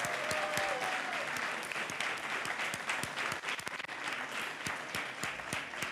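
Audience applauding: many hands clapping together in a steady round of applause.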